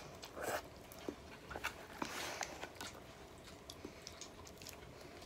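A child eating yakisoba noodles: slurping and chewing in short bursts, about half a second in and again around two seconds in, with a few faint clicks in between.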